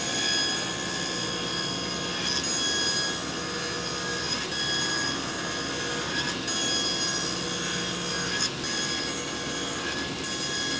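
Table saw running steadily, its blade cutting a shallow groove along a half-inch-thick board.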